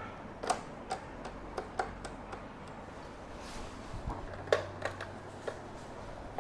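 Irregular clicks and knocks from the switches and controls of a National RQ-535 radio-cassette recorder as they are pressed, turned and handled, about a dozen in all. The set powers up but its speaker stays silent: no radio or tape sound comes out.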